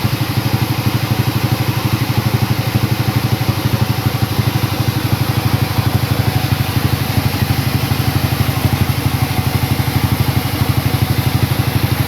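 A sawmill's engine running steadily at low speed, with a fast, even chugging beat.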